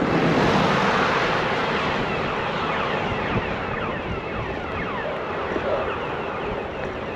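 Steady rushing of wind over a fur-covered handlebar camera microphone and bicycle tyres rolling on asphalt, louder in the first couple of seconds with a low hum that fades out about a second in.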